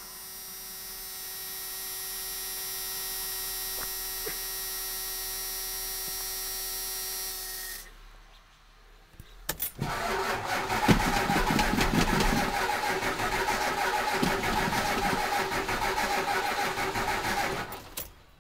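A steady electrical buzz for about eight seconds. Then the 1992 Ford F-350's engine is cranked on the starter for about eight seconds and does not catch.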